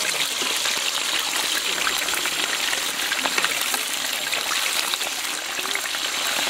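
Hot oil sizzling and crackling steadily around whole fish deep-frying in a wok over a wood fire.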